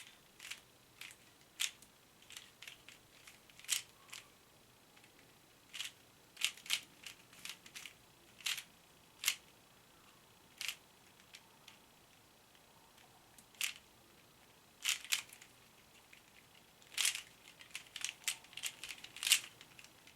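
Sharp plastic clicks from a Rubik's cube being turned, coming irregularly: single clicks and short clusters, with a few louder ones near the end.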